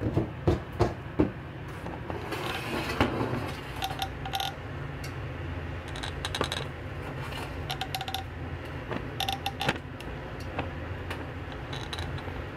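Kitchen clatter: a few sharp knocks about a second in, a scraping rustle, then scattered light clinks of metal pots and utensils, some ringing briefly, over a steady low hum.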